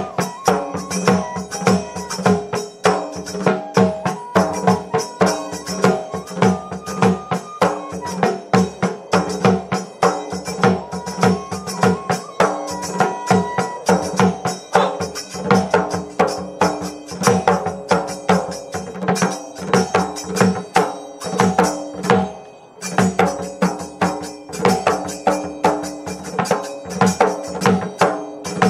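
Assamese folk dance music: a bamboo flute playing a stepping melody over a fast, steady beat on a two-headed dhol drum, with a short dip a little past the middle.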